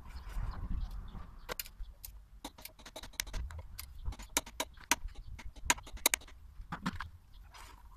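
Socket ratchet clicking in short runs of sharp ticks as it works the bolt of a motorcycle's front brake caliper.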